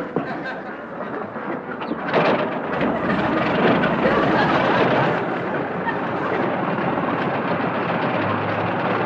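Propeller aircraft engine running steadily, getting louder about two seconds in.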